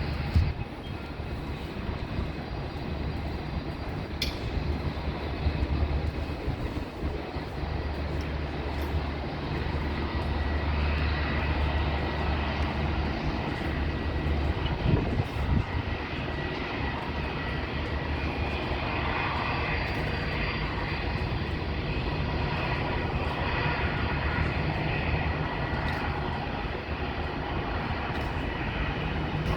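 Jet airliner engine noise in the open air, rising and falling, with wind buffeting the microphone in a steady low rumble.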